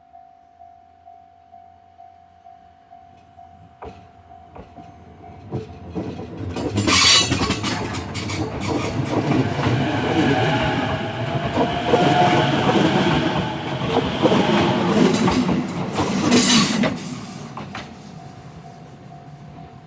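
Japanese level-crossing bell ringing about twice a second, then a JR Ome Line train passing over the crossing with a loud rumble and wheel clatter, and sharp flange squeals from the wheels near the start and end of its pass. The crossing bell is heard again faintly as the train moves away.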